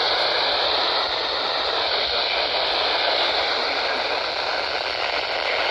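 Steady hiss of radio static from a weather radio receiver picking up no signal.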